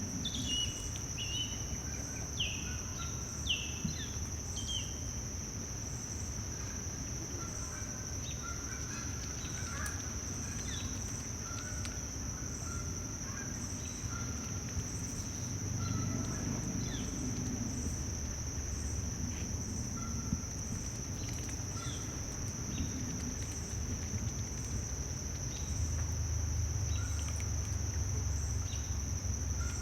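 Insects trilling in one steady high unbroken note, with bird calls: a few quick falling chirps in the first few seconds, then scattered short chirps. A low rumble sits underneath.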